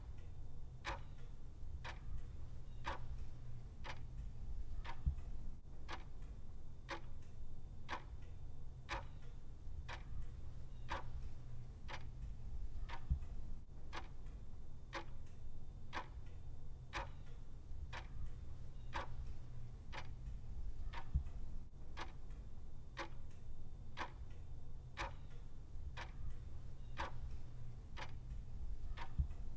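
Clock ticking steadily, about one tick a second, over a low steady rumble.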